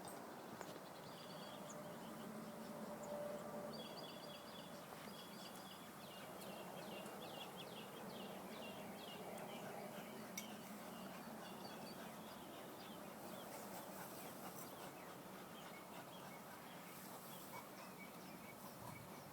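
Faint birds chirping in quick, repeated runs over a quiet outdoor background hiss.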